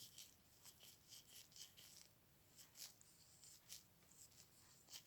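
Near silence with faint, scattered light clicks and soft rubbing as small camera lens parts are handled.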